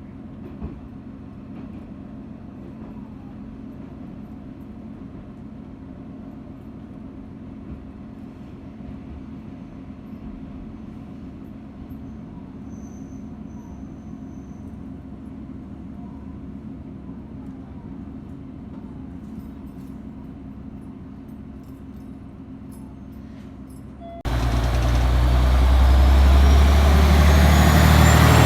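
A steady low hum, then about 24 seconds in a loud diesel engine sound starts abruptly, with a whine rising steadily in pitch: a diesel railcar pulling away and accelerating.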